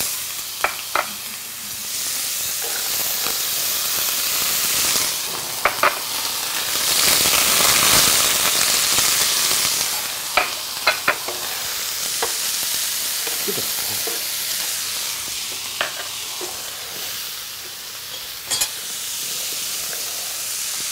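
Diced carrots, celery, leek and onion sizzling as they roast in a hot frying pan, with a steady hiss that swells louder around the middle. A few sharp clicks are heard against the pan.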